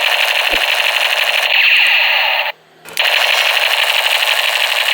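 Toy military gun's electronic machine-gun firing sound from its small built-in speaker: a rapid, tinny rattle that breaks off briefly about two and a half seconds in, then starts again.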